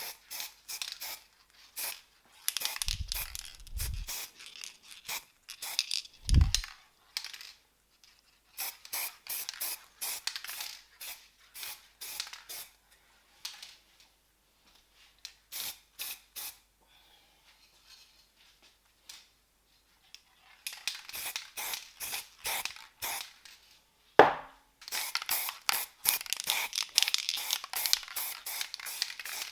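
Aerosol spray-paint can spraying in many short bursts of hiss, with a few dull thumps early on and one sharp knock about two-thirds of the way through.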